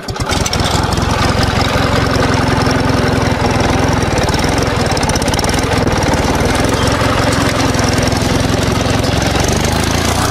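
Channel intro sound effect: a loud, steady rumbling drone with a rapid flutter, laid under a logo animation.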